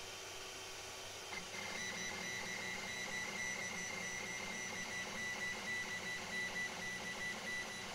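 JGAurora A7 3D printer's stepper motors starting up about a second and a half in and running with a steady high whine, driving the bed during its hardware auto-leveling routine.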